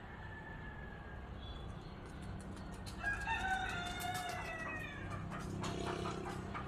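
A bird's single drawn-out call of about two seconds, starting about three seconds in, over a steady low rumble.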